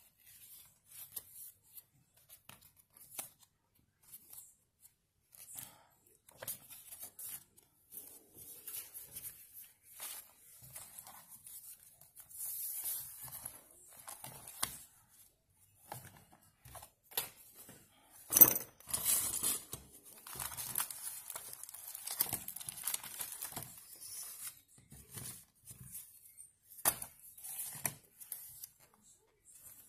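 Paper rustling and crinkling as the pages of a travel journal are pressed flat and turned by hand, in scattered short bursts with small taps. The loudest rustle comes a little past the middle.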